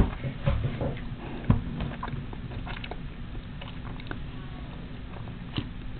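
Hands tying a square knot in embroidery floss: light rustling and small scattered clicks, with a few soft knocks against the project board, over a low steady hum.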